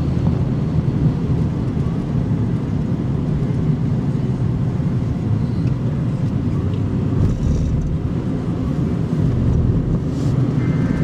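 Steady low road and engine rumble of a car driving, heard from inside the cabin. Near the end an electronic alert tone with two steady pitches starts up.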